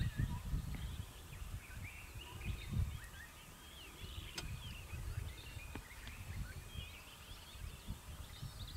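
Several small birds chirping and twittering in overlapping short calls, over an irregular low rumble.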